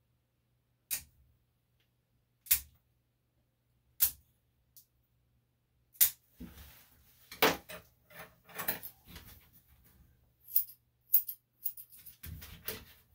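Sharp metallic clicks, at first single ones about one and a half seconds apart, then from about six seconds in a busier run of clicking and light jingling.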